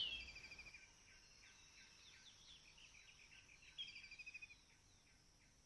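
Faint bird calls: a quick run of repeated high notes at the start and another about four seconds in, with near silence between.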